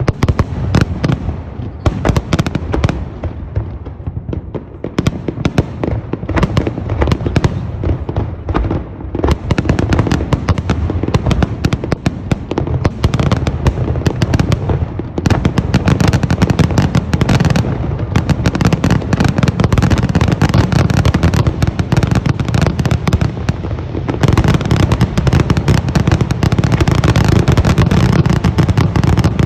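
Fireworks display exploding in a rapid, dense string of bangs. It grows denser and louder about halfway through and again near the end.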